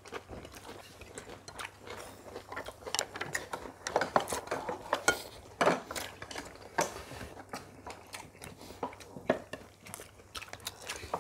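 Several people eating: chopsticks and spoons clicking against plates and bowls in many short, irregular taps, mixed with chewing.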